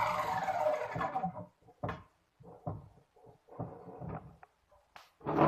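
The electric motor of a homemade bench metal-cutting saw, built from a tile cutter, winds down, its pitch falling until it dies away about a second in. Then come a series of short knocks and clunks, the loudest near the end.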